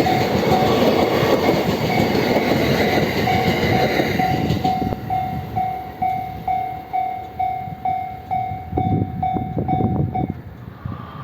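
E653 series electric train running through a level crossing, its wheels clacking on the rails, while the crossing's warning bell rings about three times a second. The train noise dies away about four to five seconds in, and the bell stops near the end.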